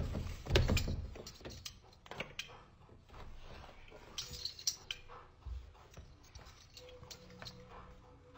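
Hard plastic pet door knocking and clicking as a dog shoves its head and body into it. Two heavy thumps in the first second, then scattered light clicks and taps.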